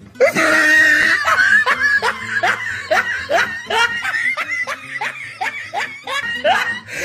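Laughter: a long run of short rising 'ha' sounds, about two to three a second, cut off suddenly at the end.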